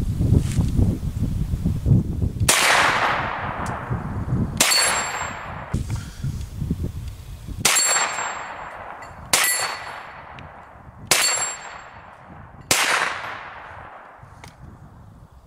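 Six single shots from a Hi-Point 9mm carbine, fired at an uneven pace about two seconds apart, each followed by a long ringing tail. A low rumble comes before the first shot.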